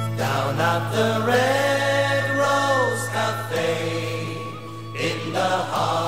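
Background music: a slow melody over a steady low drone.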